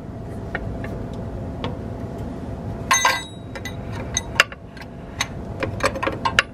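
Sharp metallic ticks and clinks of a wrench working the injector fuel line nuts on a 5.9 Cummins diesel, with one brighter ringing clink about halfway through, over a steady low hum.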